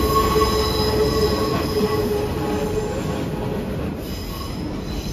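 Hanshin Railway train's wheels squealing on the tight curve of the elevated track, a steady high squeal over the rumble of the passing cars. The squeal weakens about three seconds in as the train draws away.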